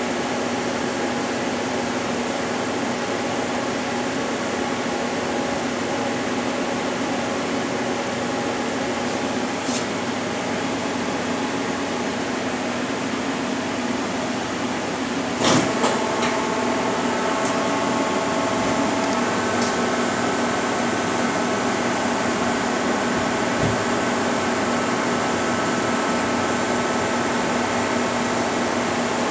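1997 Bridgeport PowerPath 15 CNC lathe, powered up, humming steadily with several held tones. About halfway through comes a sharp clunk, after which a few higher steady whine tones join in.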